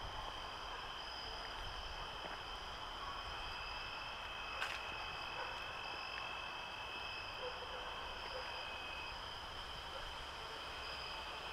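Night insect chorus: crickets trilling steadily at several pitches at once, one of them with a slight pulse. A single faint click comes about four and a half seconds in.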